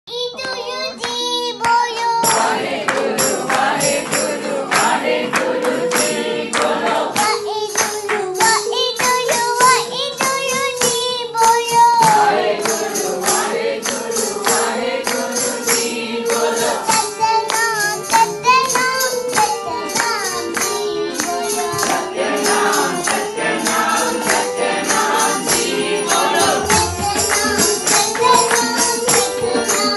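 Group singing of a devotional bhajan, with a small child singing into a microphone over a steady held note and percussion keeping a regular beat.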